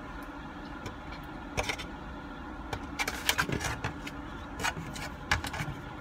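Eating noises close to the microphone: chewing, a plastic fork scraping in a styrofoam takeout box and the box creaking, heard as scattered sharp clicks and crackles with a dense cluster about three seconds in. Under them runs a steady low rumble of the car.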